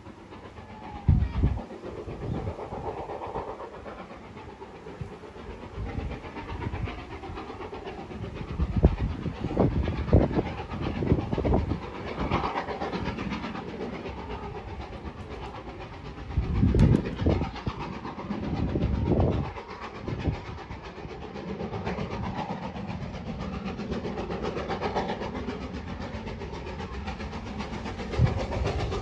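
A heritage railway train running along the line in the distance, slowly drawing nearer. Low gusts of wind buffet the microphone several times, and these are the loudest sounds.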